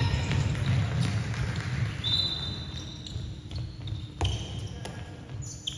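Ball bouncing on a hard sports-hall floor during play, with a short high squeak about two seconds in and a sharp thud a little after four seconds.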